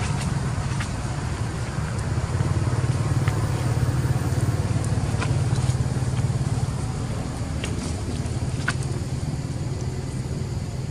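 A motor vehicle engine running steadily, heard as a low hum, with a few faint scattered clicks over it.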